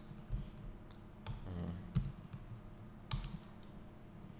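Scattered clicks of a computer mouse and keyboard keys, about five of them roughly a second apart.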